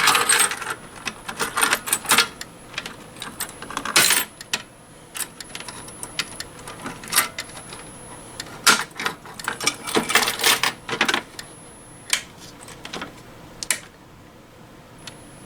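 Irregular metallic clicks and rattles of a key being worked into the lock of a Silent Knight BG12 fire alarm pull station and the station being handled to reset it, coming in bursts with short quiet gaps.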